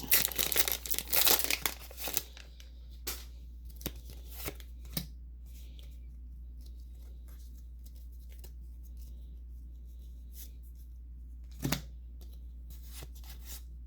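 A foil Pokémon booster pack wrapper torn open and crinkling for about two seconds, followed by scattered soft rustles and taps as the cards are handled, with one louder rustle near the end. A steady low hum sits underneath.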